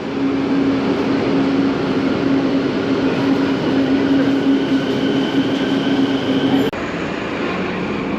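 Metro train running, a steady rumble of wheels and motors with a constant hum; about three-quarters of the way through the sound changes abruptly and the hum drops out.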